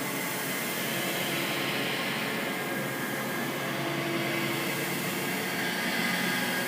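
A steady rushing noise with a faint low hum underneath, its hiss swelling slightly past the middle.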